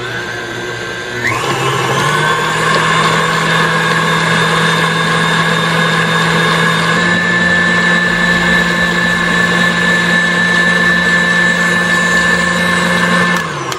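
An electric kitchen appliance motor running at a steady whine. It steps up in speed about a second in and stops just before the end.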